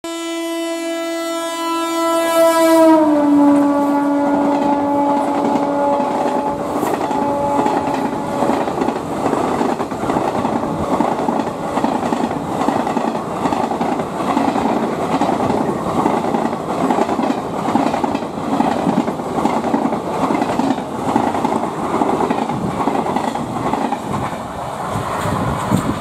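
WAP4 electric locomotive's horn sounding one long blast as it passes at speed. Its pitch drops about three seconds in as the engine goes by, and it fades out by about eight seconds. A long rake of passenger coaches follows, rolling past fast with a steady clickety-clack of wheels over the rail joints.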